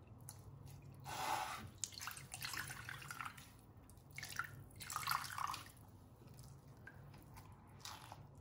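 Wet squelching and dripping of milk as a mash of ground dry fruits is squeezed by hand to press out its extract, in several short irregular bursts, the loudest about a second in and again around five seconds.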